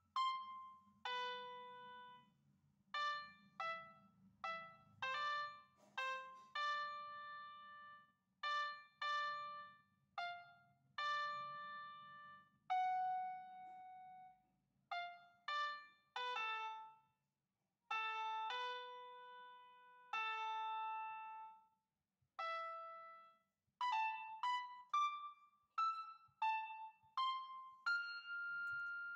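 Background music: a slow keyboard melody of single notes, each struck, ringing and fading, with short pauses between them.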